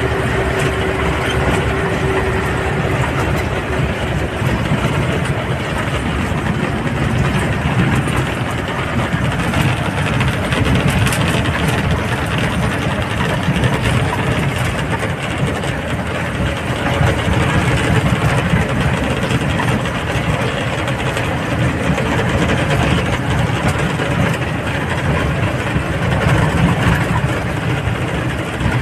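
Engine and road noise of a moving vehicle, heard from on board, running steadily without a break.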